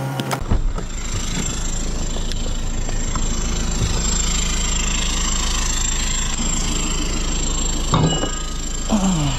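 Tow truck engine running steadily, with two short louder sounds near the end, the second falling in pitch.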